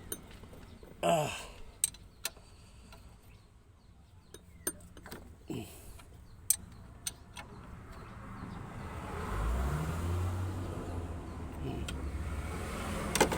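Scattered sharp clicks, then from about nine seconds in a motor vehicle's engine rumbling low and steadily in the background, growing louder before it levels off.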